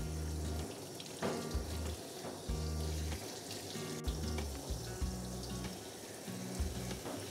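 Handheld shower sprayer hissing as water runs onto a dog's coat, under background music with low bass notes.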